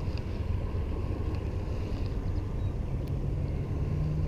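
Steady low outdoor rumble, with a faint low hum joining about three seconds in.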